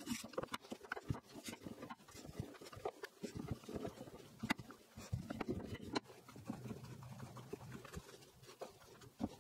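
Faint, scattered taps and soft knocks of dough being rolled out and handled on a wooden chopping board.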